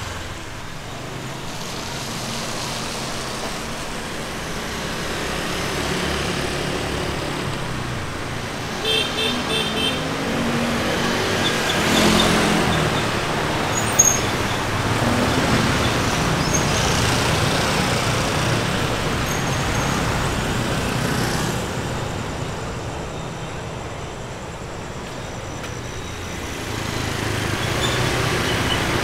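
Street traffic passing: steady engine and tyre noise from vehicles going by, loudest about twelve seconds in. About nine seconds in there is a short run of quick high beeps, and a sharp click follows a couple of seconds later.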